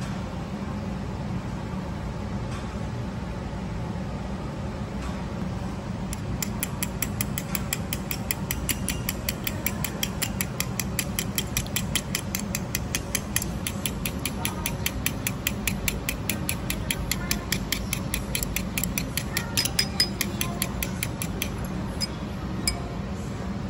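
Chopsticks beating a raw egg in a small ceramic bowl, clicking against the bowl's side in a quick steady rhythm of about five clicks a second, starting several seconds in and stopping shortly before the end. A low steady hum of room noise lies underneath.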